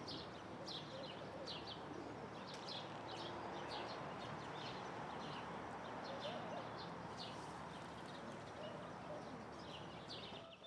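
Small birds chirping, short high calls repeated every half second or so, over a steady faint outdoor background noise.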